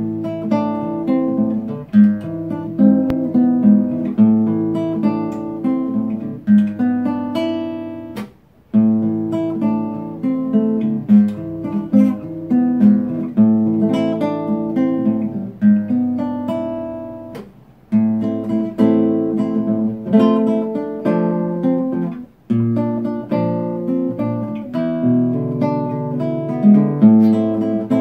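Solo nylon-string classical guitar fingerpicked as a chord-melody arrangement, plucked melody notes over ringing chords, with a few brief pauses between phrases.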